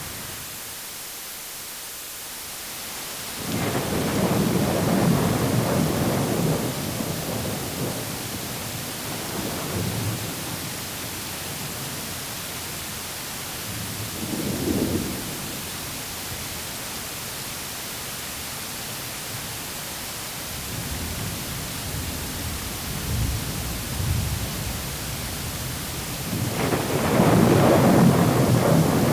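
Thunderstorm: a steady hiss of rain with rolling thunder rumbling several times. The biggest peal comes near the end.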